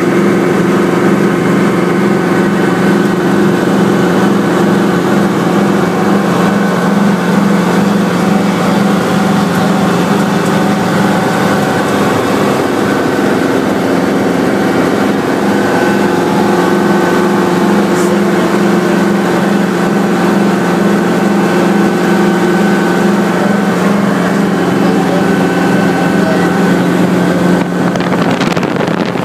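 Hughes 300 helicopter in flight, heard from inside the cabin: the steady drone of its four-cylinder piston engine and rotors, loud and unchanging.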